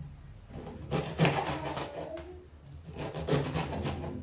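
A kitchen knife chopping onion on a plastic cutting board: a few short runs of quick tapping strokes, the onion being diced very finely.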